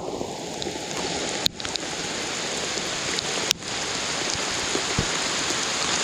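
Heavy rain falling, a steady dense hiss of drops that builds slightly, with two sharp taps about one and a half and three and a half seconds in.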